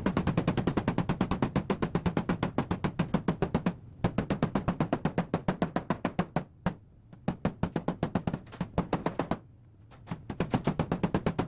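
Paintless dent repair tapping: a blending hammer or knockdown tool striking a high-strength steel car door in quick, even taps, about ten a second, to level high spots and creases. The runs of taps stop briefly three times.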